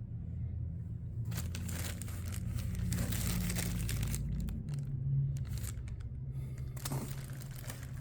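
Irregular rustling and crinkling noises, like something being handled, over a steady low hum.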